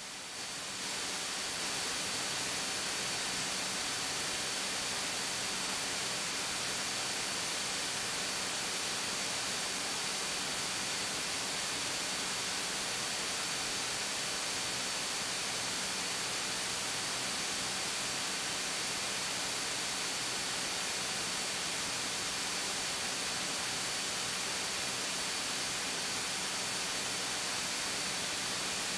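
Steady cabin noise of a Beechcraft A36 Bonanza in cruise descent: engine, propeller and airflow blend into an even rush, with a faint steady high-pitched whine. The noise swells over the first second, then holds level.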